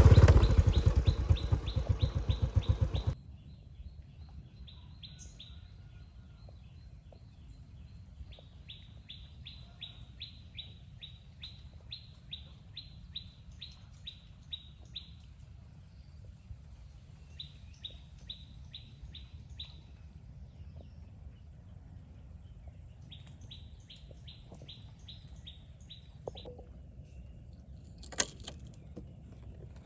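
A motorbike engine runs for about three seconds and then stops abruptly. After that, a bird calls in runs of short identical chirps, about three a second, pausing between runs over a faint steady high-pitched hum.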